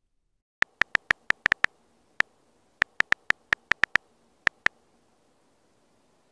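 Android on-screen keyboard key-press clicks: about seventeen short, sharp clicks in uneven bursts as a short phrase is typed. The clicks stop about two-thirds of the way through.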